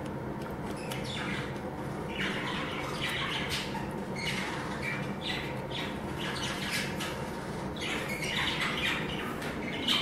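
A group of budgerigars chattering, with many short chirps and squawks overlapping. The calls start about a second in and keep on, over a steady low background hum.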